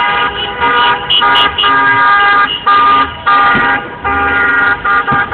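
Several car horns honking over and over in celebration, with overlapping blasts of different pitches, mostly half a second to a second long with short gaps between them.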